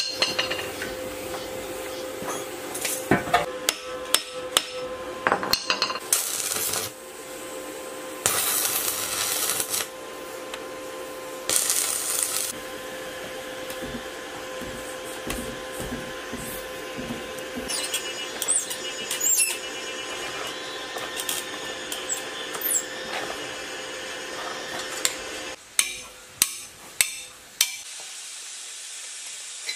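Metal tools knocking, scraping and clinking against the rusty parts of a scrapped 1115 single-cylinder diesel engine as it is taken apart. There are two short bursts of hissing noise about ten seconds in, and a run of sharp knocks near the end.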